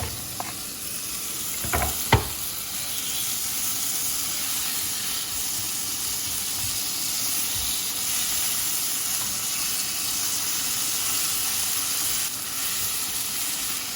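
Onions and spices frying in hot oil in a pan, sizzling steadily as chopped tomatoes go in. Two sharp knocks come about two seconds in.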